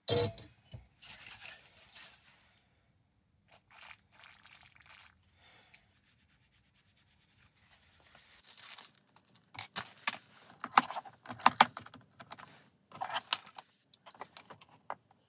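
Handling noises of an LED PARcan fixture being moved and turned on a workbench: a sharp knock at the start, soft rustling in the first few seconds, then a run of clicks and knocks in the second half.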